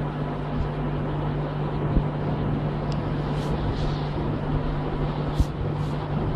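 Steady rushing background noise with a constant low hum, broken by a couple of soft knocks, about two seconds in and again past five seconds.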